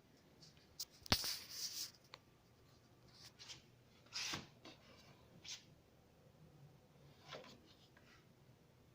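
Scattered clicks and short scrapes of hand work on an aerator motor, tools and parts being handled, the sharpest a click and scrape about a second in; a faint low hum runs underneath.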